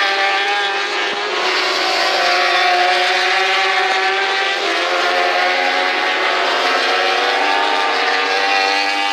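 A pack of 1000cc superbike racing motorcycles at full race pace through a corner, several engine notes overlapping and rising and falling in pitch as the bikes brake and accelerate.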